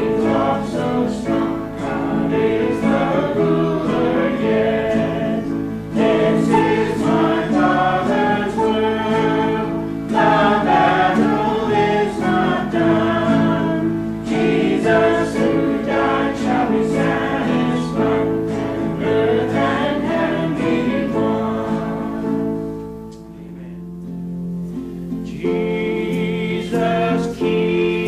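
Choir singing a gospel hymn with instrumental accompaniment; it softens briefly near the end, then comes back in full.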